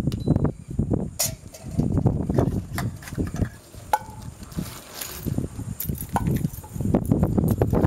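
Wind buffeting the microphone in an uneven rumble, with a few light clinks and knocks as metal camp cookset pots are nested and packed into their stuff sacks.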